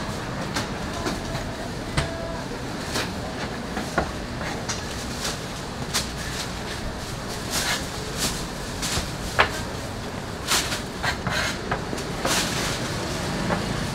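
Metal bench scraper chopping through dough and knocking on a wooden board: irregular sharp taps, roughly one a second, a quicker run of them near the end, over steady background noise.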